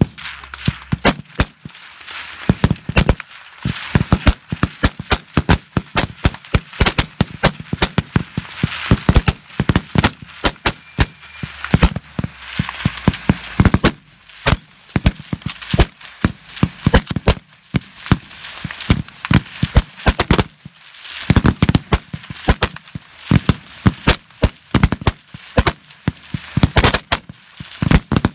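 Many M1 Garand rifles firing rapid fire along a firing line: a dense, irregular stream of overlapping gunshots, some loud and close, others fainter and further down the line.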